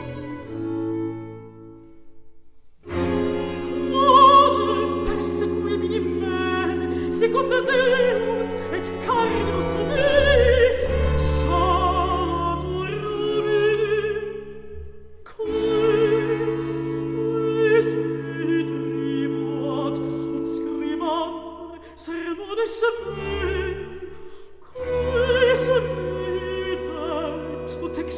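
Baroque sacred vocal music: a contralto sings a slow, sustained Latin line with vibrato over a period string ensemble and continuo. The strings play alone at first and drop out briefly about two seconds in. The voice enters about three seconds in.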